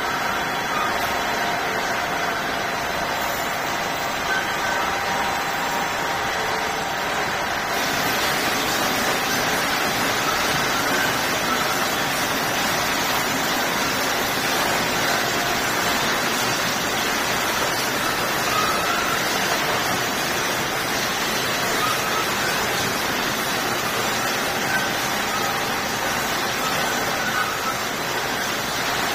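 Steady running noise of a roller line feeding plastic sheet and film, an even machine hiss with a few faint steady tones, growing brighter about eight seconds in.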